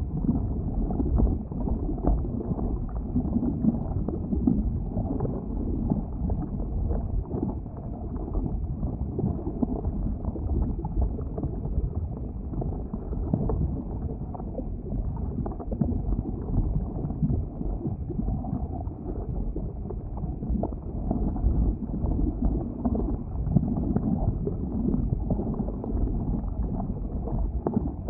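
Volcano lava-bubbling sound effect: a continuous deep, low-pitched churning with irregular gurgling pops.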